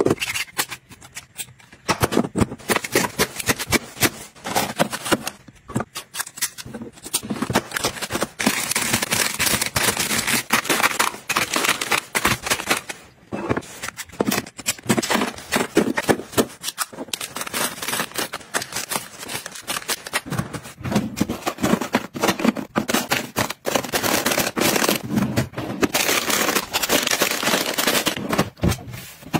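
Close-up handling sounds: white plastic drawer dividers clicking and scraping as they are fitted into a metal drawer, and plastic snack and tea packets crinkling as they are set into the compartments, in a dense run of sharp clicks with thicker stretches of crinkling.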